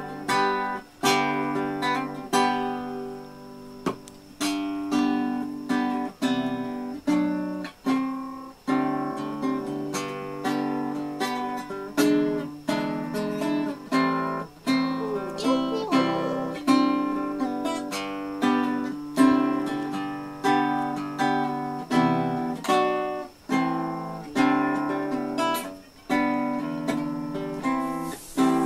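Acoustic guitar strummed at home in practice: chords struck about once a second in an unhurried, uneven rhythm, each left to ring and fade before the next.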